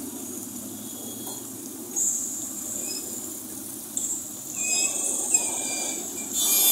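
Outdoor street ambience: a steady low hum of traffic with high hiss, a few short high chirps from about the middle on, and a brief burst of noise near the end.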